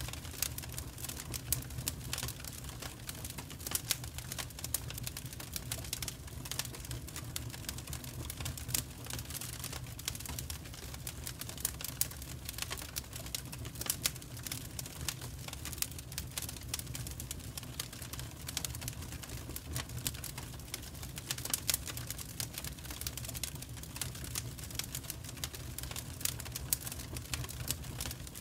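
Wood fire crackling in an open fireplace: burning logs give off irregular sharp pops and snaps over a steady low rumble.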